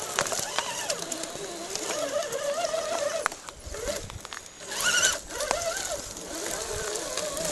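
Electric drive motor and gearbox of a scale RC crawler whining as it climbs, the pitch rising and falling with throttle and load, louder about five seconds in. Scattered sharp clicks and snaps run through it.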